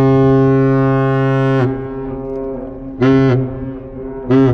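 A deep, heavy ship-style horn sounding a salute signal. The end of one long blast cuts off about one and a half seconds in, then come two short blasts about a second and a half apart.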